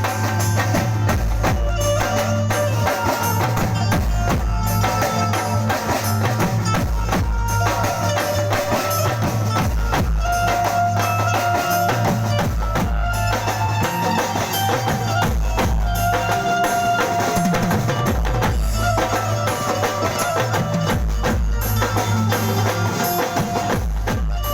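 Live garba music over a PA system: a steady, loud drum beat with a held bass note and a sustained melody line on top.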